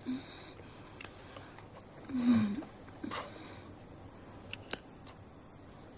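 Kissing sounds: soft lip and breath noises, with a brief hummed voice sound about two seconds in. About three-quarters of the way through comes a quick double click of a wall light switch being flipped off.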